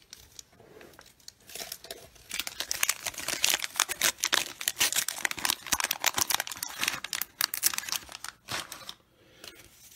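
Blue wax-paper wrapper of a 1990 Bowman baseball card pack being torn open and crumpled: a dense crackling rustle that starts about a second and a half in and stops shortly before the end.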